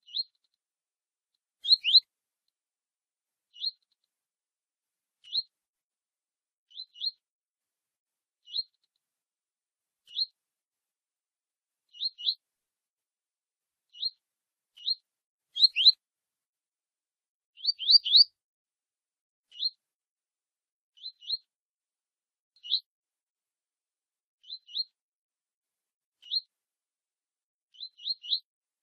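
Double-collared seedeater (coleiro) giving its short 'tui tui' call: brief high rising chirps, singly, in pairs or in threes, every second or two, with silence between.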